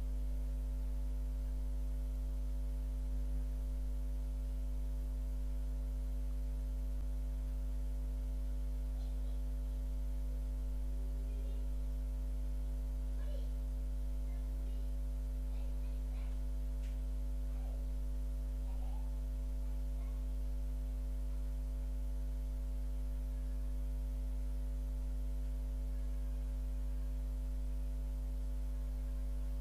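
Steady electrical mains hum: a low drone with a stack of higher overtones, unchanging throughout. A few faint small ticks come and go through the middle.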